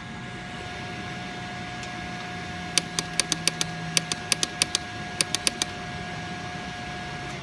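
2006 Suzuki GSX-R600 that won't start, clicking from the rear of the bike: about sixteen sharp clicks in three quick runs over a few seconds. A steady whine runs underneath and drops in pitch near the end.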